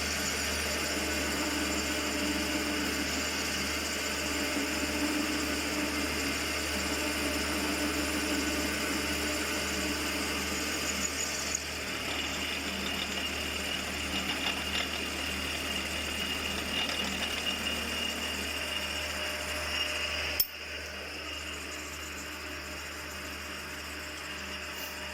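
Milling machine running as the cutter bores a hole in a plate, a steady whir of spindle and motor with a high whine joining about halfway through. About four seconds before the end there is a sharp click and the low hum cuts out, leaving a quieter whir.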